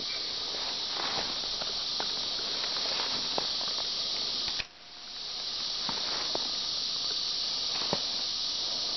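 Steady high-pitched buzzing of an insect chorus in summer woods, dropping out suddenly about halfway through and swelling back within a second. Scattered light crackles of footsteps and brush underfoot.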